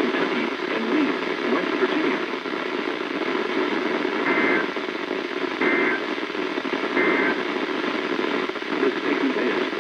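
NOAA Weather Radio reception through a weather radio's speaker with steady static hiss, and three short two-tone digital data bursts about a second apart in the middle: the SAME end-of-message code that closes an alert.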